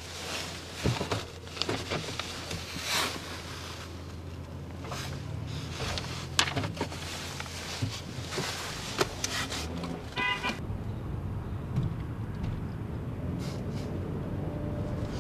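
Steady low hum with scattered knocks and clicks, and one short pitched beep about ten seconds in.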